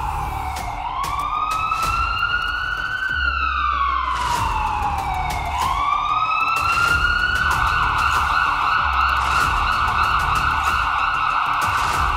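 Emergency-vehicle siren wailing: its pitch slides slowly down and sweeps back up twice, then holds high and steady from about seven seconds in.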